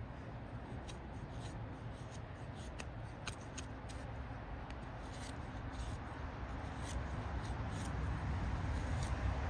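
Knife shaving curls off a peeled wooden stick: a run of short, irregular scraping strokes. A steady low rumble underneath grows louder near the end.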